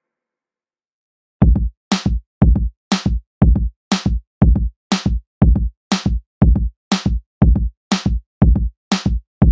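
Background music: an electronic drum beat starting about a second and a half in, a deep kick and a sharp snare hit alternating about twice a second.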